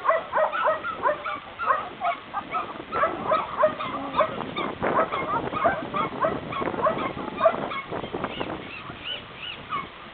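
Several dogs barking and yelping over one another in a dense, continuous run of short, high calls.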